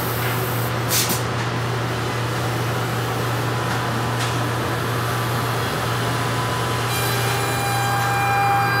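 Homag Venture 16 CNC router trimming the edge of a wooden door to width: steady machining noise over a constant low hum, with a higher steady tone joining about seven seconds in.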